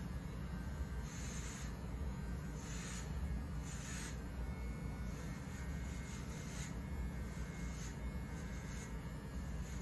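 Handheld electric shaver being drawn over a scalp, shaving the head bald: short scratchy strokes through the stubble about once a second over the steady low hum of the shaver.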